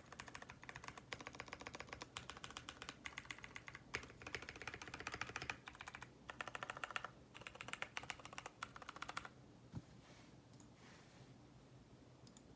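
Typing on a Velvet Pro Ergo Clear keyboard: a fast, continuous run of key clicks with a couple of brief pauses, stopping about nine seconds in.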